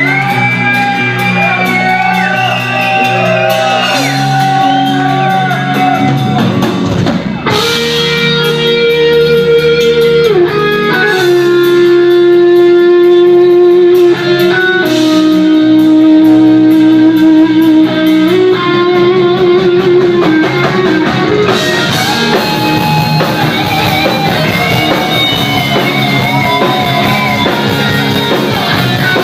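Music with guitar, a melody of long held notes with vibrato over a steady accompaniment.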